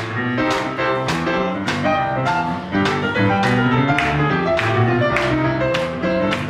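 A live jazz band playing, with sustained pitched notes over a steady beat of about two strikes a second.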